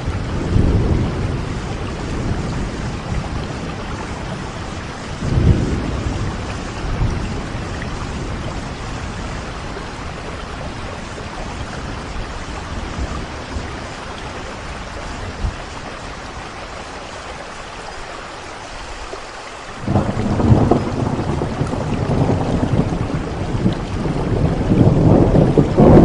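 Steady rain with thunder: a rumble near the start, another sudden one about five seconds in, then a long deep rumble from about twenty seconds in that grows louder toward the end.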